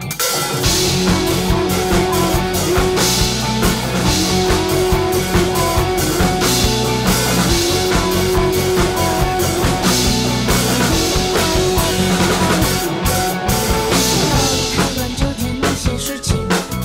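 Rock music with a drum kit keeping a steady beat, and guitar.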